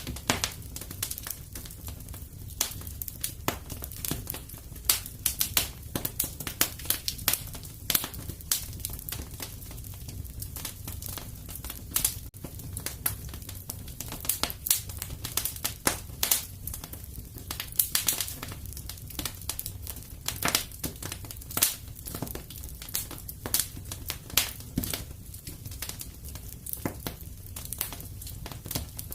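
Wood fire crackling in a fireplace: many irregular pops and snaps over a steady low rumble.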